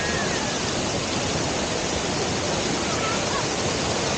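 Waterfall rushing: a steady, even roar of falling water, with a few faint short whistles near the start and about three seconds in.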